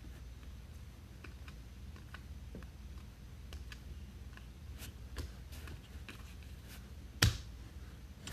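Baseball trading cards being handled and flipped through by hand: faint small ticks over a low steady hum, with one sharp click a little after seven seconds in.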